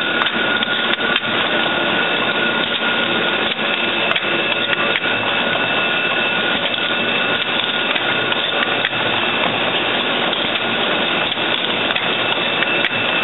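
Automatic needle assembly machine running: a steady, dense mechanical clatter of many small clicks over a constant high whine.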